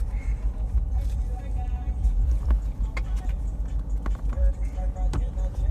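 Steady low rumble of a car driving, heard from inside the cabin, with a few light knocks.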